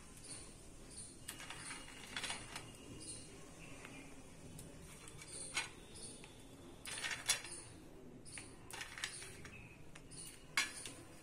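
Faint, scattered clicks and clinks as cashews, almonds and raisins are picked off a steel plate by hand and dropped onto soft custard, about half a dozen sharp ones among them.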